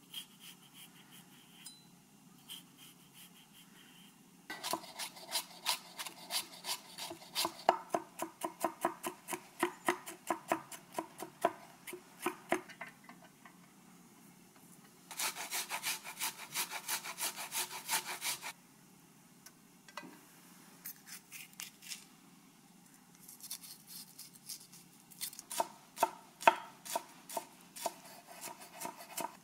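Kitchen knife chopping on a wooden cutting board, in quick runs of strokes with pauses between them.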